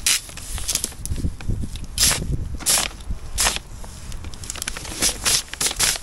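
Heavy black polythene damp-proof membrane crinkling and rustling under hands as it is smoothed flat, in a series of short rustles.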